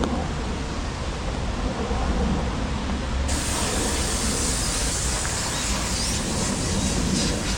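Steady rain falling, with a low rumble beneath; the hiss grows brighter about three seconds in.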